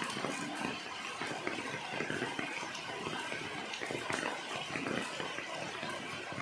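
Steady rain falling on broad golden pothos leaves, many small drops striking the leaves in a dense, even patter.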